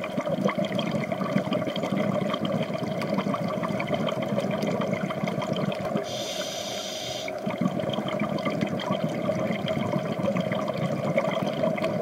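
Underwater reef ambience heard through a camera's waterproof housing: a steady muffled hiss with a fine, continuous crackle. About six seconds in, a brighter hiss rises above it for just over a second.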